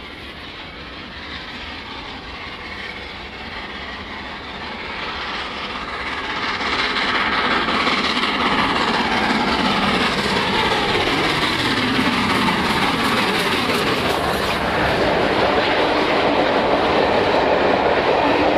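LNER A4 Pacific steam locomotive 60009 approaching and passing with its train, growing louder over the first several seconds, with a falling pitch as it goes by. The coaches then rumble past with a clickety-clack over the rail joints.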